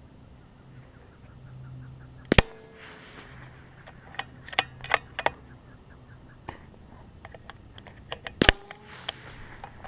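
Two shots from a CZ 455 .22 LR rimfire bolt-action rifle, about six seconds apart. Between them comes a quick run of metallic clicks as the bolt is worked to chamber the next round.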